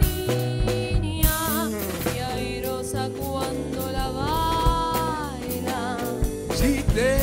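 Jazz band playing: a woman sings with vibrato, holding one long note about midway, over an electric bass line and drum kit.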